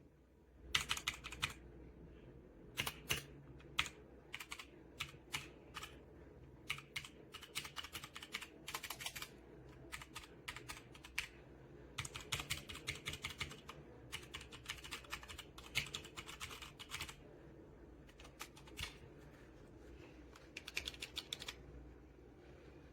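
Typing on a computer keyboard: quick runs of keystrokes broken by short pauses, stopping shortly before the end.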